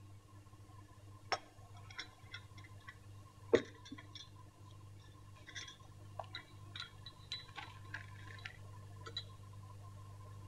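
Faint clinks of china teacups and saucers and a teaspoon stirring in a cup. The two sharpest knocks come about one and a half and three and a half seconds in, followed by a run of small light clicks, over a steady low hum.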